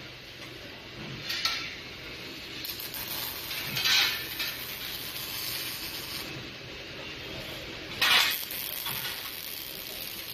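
Automatic welding machine at work: a steady hiss with three louder, brief noisy surges, about a second and a half in, about four seconds in, and about eight seconds in.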